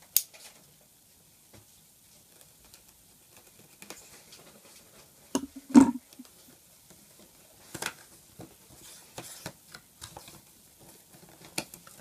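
Cardboard keyboard box being handled and opened on a table: scattered taps, scrapes and rustles of hands on cardboard, with a louder knock just before the middle and a sharp click right at the start.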